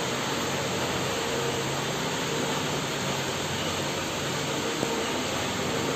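Steady hiss of heavy rain falling outside, with a faint low hum underneath.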